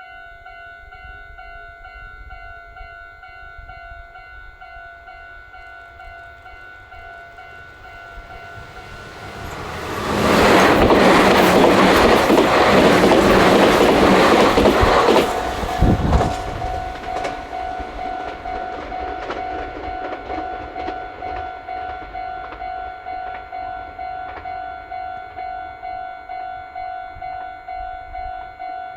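Japanese level-crossing alarm ringing, an electronic bell at about two strikes a second. From about ten seconds in to about fifteen, a Meitetsu electric train passes close by and its rush of wheels on the rails drowns the bell, which keeps ringing after the train has gone.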